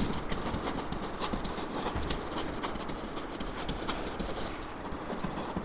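Chalk writing on a chalkboard: a quick, irregular run of taps and scratches as the letters are written.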